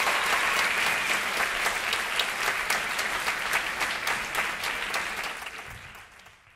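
Audience applauding, a dense patter of many hands clapping that fades out over the last second and a half.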